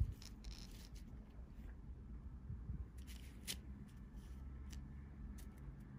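Faint, scattered crinkles and ticks of small plastic zip-lock bags of round diamond-painting drills being handled and shifted on a canvas.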